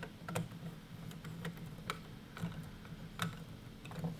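Light, irregular clicks and ticks of a small screwdriver and wire working at a controller's screw terminal, as a thermostat wire is fastened into the terminal block.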